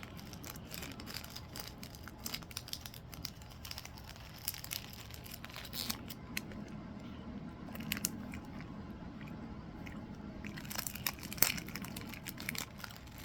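Plastic snack packet crinkling and rustling, with crunching as a dry, noodle-like Japanese snack is bitten and chewed. Crisp crackles come thickly in the first half, with another burst near the end.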